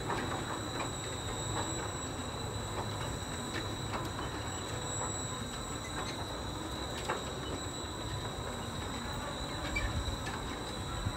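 Zamperla Air Race 8.2 amusement ride running mid-cycle, its arms and plane gondolas spinning and flipping: a steady mechanical rumble with scattered clicks and a few louder knocks, over a steady high whine.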